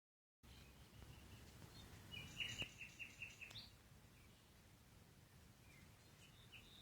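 A songbird gives a short, quick trill of about eight evenly repeated high notes, faint over quiet outdoor ambience.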